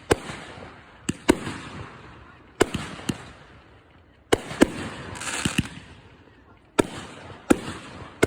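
Consumer fireworks going off: about ten sharp bangs at uneven spacing, each trailing off, with a spell of crackle about five seconds in.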